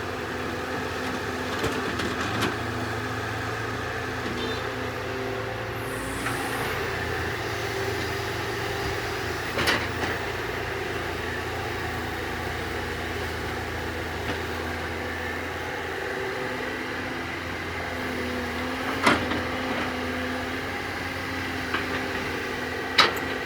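Sumitomo S265EA excavator's diesel engine running steadily, with a few sharp knocks standing out over the hum.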